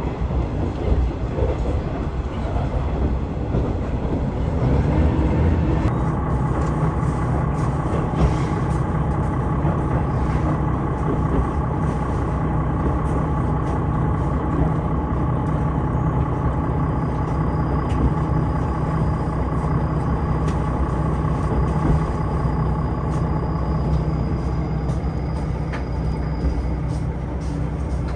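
KiHa 110 series diesel railcar running, heard from inside the passenger car: a steady low rumble of engine and wheels on the rails, with a steady whine over it after about six seconds.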